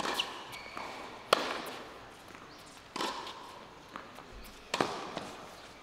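Tennis rally on a hard court: four sharp racket strikes on the ball, roughly one every one and a half seconds, with lighter ticks of ball bounces and footwork between them. The strikes by the near player, about a second and a half in and near the end, are the loudest.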